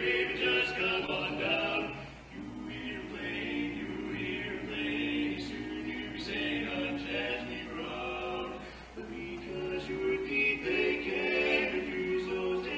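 Male vocal quartet singing a cappella in close four-part harmony, holding sustained chords, with short breaks between phrases about two seconds in and again near nine seconds.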